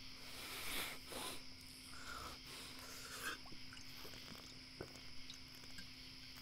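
A man drinking from a glass bottle, with a few soft gulps and small rustles and clicks, over a steady faint high hiss.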